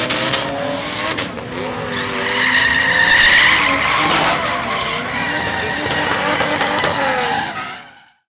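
Drift cars sliding on a track: engines revving up and down with tyres squealing, the squeal loudest about three seconds in. The sound fades out near the end.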